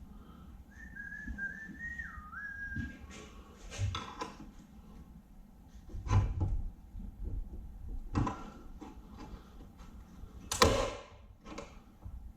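A person whistling a few wavering notes for about two seconds, followed by several clanks and knocks of shop work, the loudest near the end.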